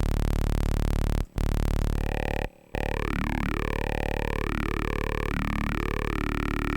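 Spire software synthesizer playing a low buzzy 'talking man' patch through a vowel filter. Two short notes break off, then a long held note with vowel-like sweeps that rise and fall again and again, so the synth seems to talk.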